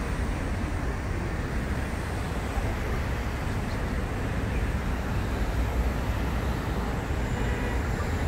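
Steady road traffic on a busy bridge, a continuous low rumble with no separate events standing out.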